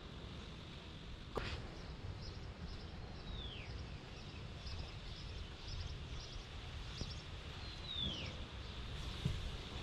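Steady outdoor background noise with a bird giving two short descending whistled calls, about three and eight seconds in, and a single sharp click about a second and a half in.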